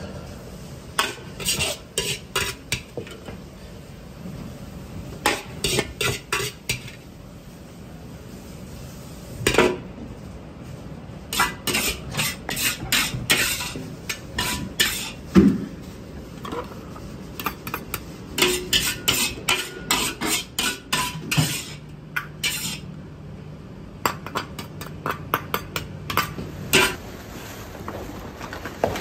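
Metal ladle scraping and clanging against a large 60 cm black wok in quick clusters of strikes as fried rice is scooped out of it onto a platter.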